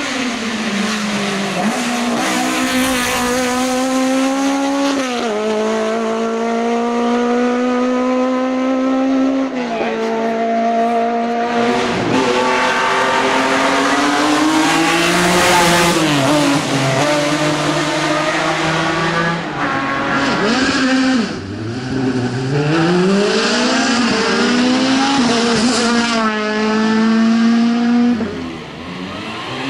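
Hill-climb race car engines at high revs, the note climbing through the gears with sharp drops at each shift and dipping when the driver lifts. The sound breaks off abruptly a few times as the sound changes from one pass to another.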